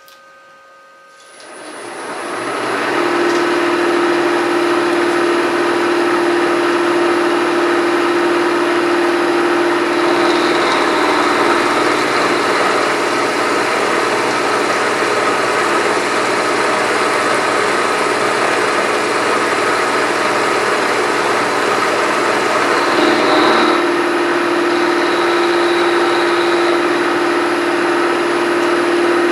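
Milling machine cutting metal with an end mill: the sound rises over the first few seconds into a steady whine with a constant tone and a hiss of cutting. It changes in character about ten seconds in and again a little before the end as the cut goes on.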